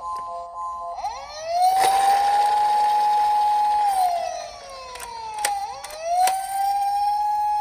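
Toy police car's electronic wail siren: about a second in it rises and holds, slowly falls in the middle, then rises and holds again. A few sharp clicks sound over it.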